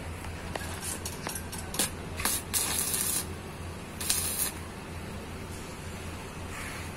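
Paint being sprayed in a few short hissing bursts, the longest about two and a half seconds in and another about four seconds in, with light clicks between and a steady low hum underneath.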